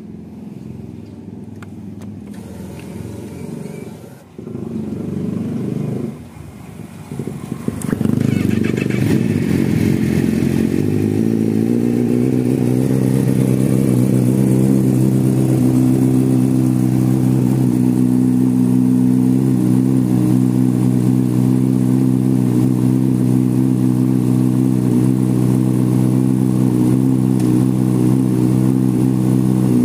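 Honda Fireblade inline-four sport bike engine with an Akrapovic exhaust, starting about a quarter of the way in and settling within a few seconds into a loud, steady idle that holds without revving.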